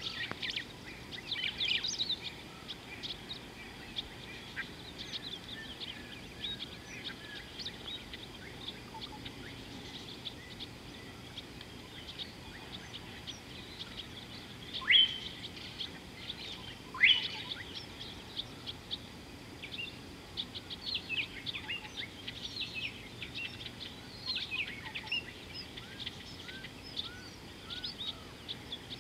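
Wild birds chirping and calling, with many short high notes throughout. About halfway through come two loud, sharply rising whistled calls about two seconds apart.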